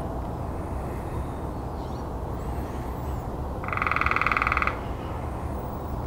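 Red-bellied woodpecker giving a single rolling churr call, a loud rapid trill lasting about a second, a little past halfway. Faint high bird chirps and a steady low rumble lie underneath.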